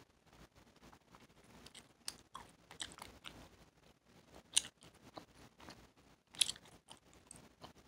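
A mouth chewing a wad of Hubba Bubba bubble gum: wet smacking and clicking, with two louder sharp smacks about four and a half and six and a half seconds in.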